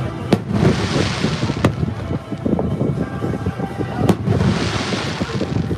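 Fireworks going off: three sharp bangs, two of them followed by about a second of crackling hiss.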